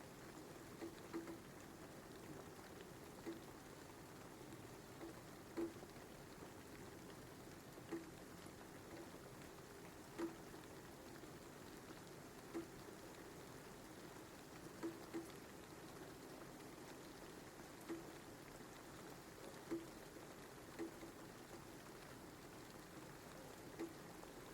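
Soft, steady rain, with single louder drops plinking every one to three seconds.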